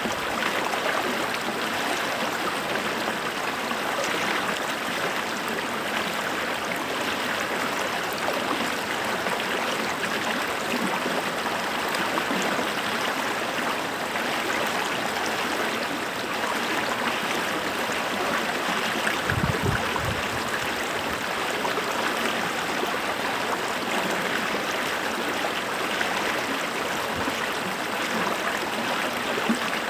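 Running water, a stream rushing steadily. A brief low rumble comes about two-thirds of the way through.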